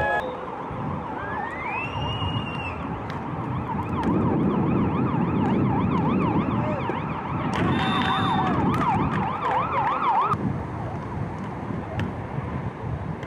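A siren warbling rapidly up and down, after a rising glide, that cuts off suddenly about ten seconds in.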